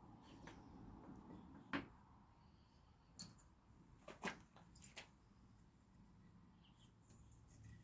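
Near silence, broken by a few faint, short knocks and clicks of small wooden workpieces and spacers being handled and set in place.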